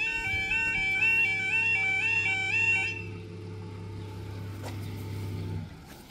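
Level crossing 'yodel' warning alarm, a rapid two-tone warble, that cuts off about halfway through. A low steady hum carries on under it and stops shortly before the end.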